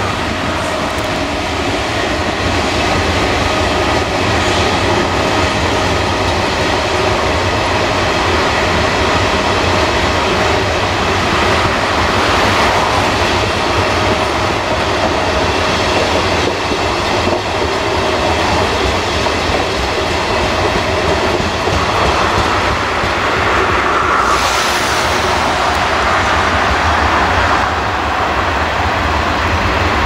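Electric train passing close by, a steady loud noise of wheels on rails, with a short high hiss about 24 seconds in.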